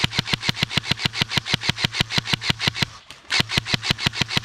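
ARP556 airsoft electric rifle firing long full-auto bursts, about nine shots a second, with a steady hum under the shots. The first burst stops about three seconds in, and a second one starts after a brief pause.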